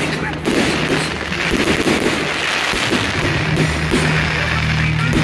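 Fireworks display going off, with repeated bangs and crackling over loud music with a steady bass line.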